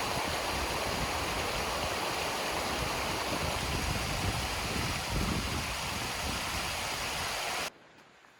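Mountain stream rushing steadily, cutting off suddenly near the end.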